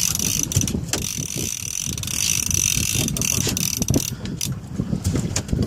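Spinning or conventional fishing reel being cranked under the load of a hooked fish, with wind buffeting the microphone. A steady high whine stops about four seconds in.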